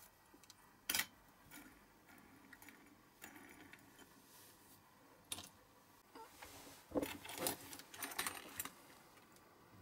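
Small clicks and light knocks of a diecast toy car chassis and its wheels being handled and set down on a cutting mat. There is a sharp click about a second in, another about five seconds in, and a quick run of clicks and rattles near the end.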